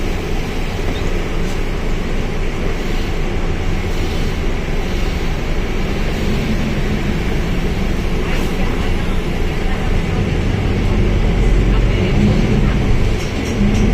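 Mercedes-Benz OF1721L bus under way: its diesel engine and drivetrain run steadily, then the engine's low note grows louder and shifts in pitch from about ten seconds in as it pulls harder.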